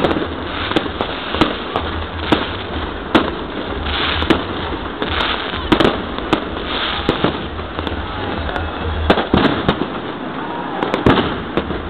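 Aerial fireworks going off overhead: a string of sharp bangs and crackles at irregular intervals, roughly one every second, some coming in quick clusters.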